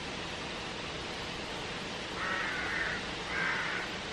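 A crow cawing twice, about two and three seconds in, each a short rough call, over a steady background hiss.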